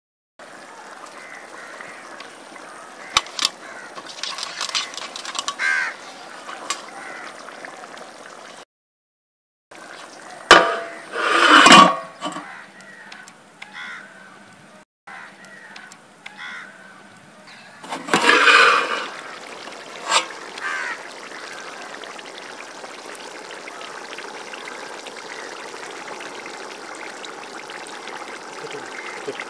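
Curry simmering and bubbling in a steel pot over a wood fire, with scattered clicks and two louder rushing swells, one about a third of the way in and one past halfway.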